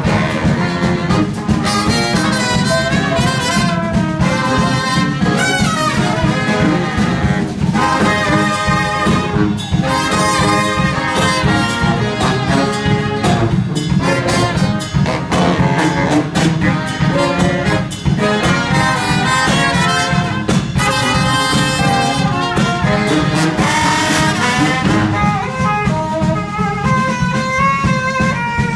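Brass band playing live: trombone, saxophones and trumpet over a sousaphone bass line and a drum kit keeping a steady beat.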